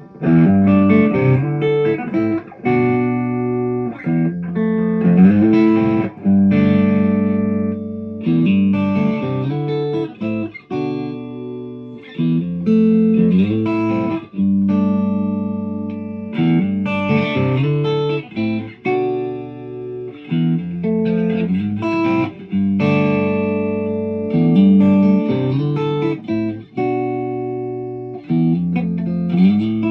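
Ibanez Prestige electric guitar played through an amp, a run of chords and single notes with short breaks between phrases and some notes bending or sliding in pitch.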